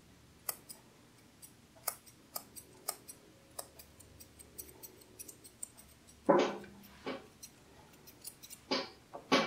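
Curved grooming scissors snipping stray tufts of dog fur around a paw: quick, irregular light metallic snips. Two louder short noises come about six and nine seconds in.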